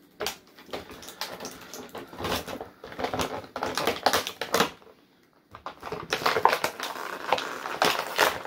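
Rapid clicking, snapping and crinkling of plastic toy packaging being handled while a stubborn wire twist tie on an action figure's ankle is cut at, with a short pause a little past halfway.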